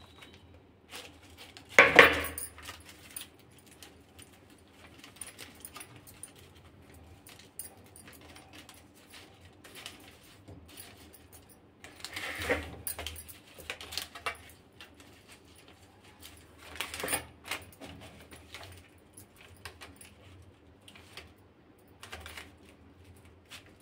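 Hands crushing a flaky laccha paratha on a paper-lined steel plate to loosen its layers: paper crinkling and rustling in short bursts. The loudest burst is about two seconds in, with others around twelve and seventeen seconds.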